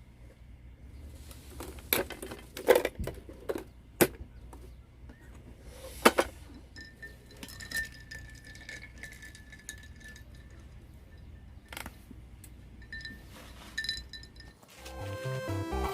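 Clinks and knocks of cups and dishes being handled: a cluster of sharp clinks a couple of seconds in, then scattered ones. Music starts near the end.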